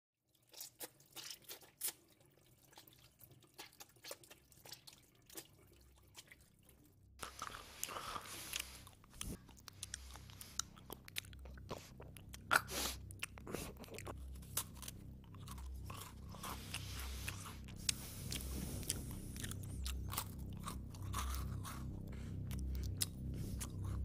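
Eating sounds: crunching and chewing, made of many sharp clicks and crackles. From about seven seconds in, a low rumble rises underneath and grows louder.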